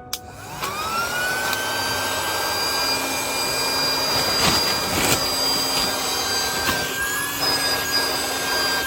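Battery-powered electric air pump starting up, its whine rising in pitch about half a second in and then holding as a steady drone while it inflates an air mattress.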